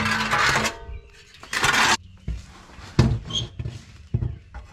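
A metal exhaust downpipe (the stock 300ZX downpipe) being handled and offered up under the car for a test fit. Two long scrapes come in the first two seconds, then a few sharp metallic knocks.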